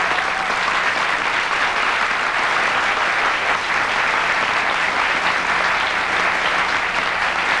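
Studio audience applauding, a dense, steady clapping that holds at an even level.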